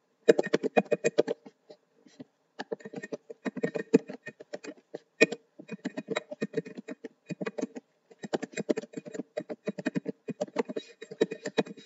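Computer keyboard typing: quick runs of key clicks with short pauses about two seconds in and about eight seconds in.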